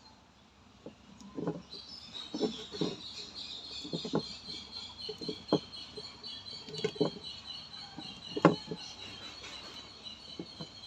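Wires being handled and twisted together in a splice, making scattered short knocks and clicks, the loudest one about eight and a half seconds in. Rapid high chirping starts about two seconds in and goes on steadily behind them.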